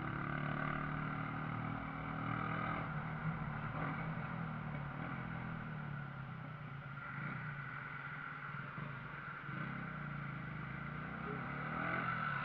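Shineray Viúva Negra motorcycle engine running while riding. Its note is strongest for the first few seconds, then eases off and picks up again near the end.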